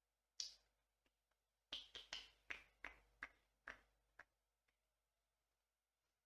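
Long fingernails tapping and clicking on the glass back of an iPhone 13 Pro Max: one tap, then a quick run of about nine taps over some two and a half seconds.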